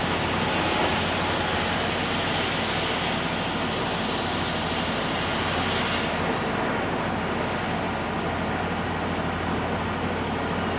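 Heavy diesel construction machinery running steadily with a constant low hum, and a higher hiss that drops away about six seconds in.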